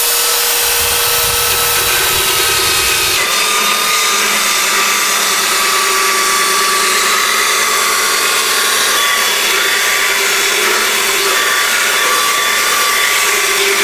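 Handheld belt sander running continuously while it sands a wooden boat stem, rough-shaping the bevel so the planking strips will lie flat. Its steady motor whine dips slightly in pitch about three seconds in.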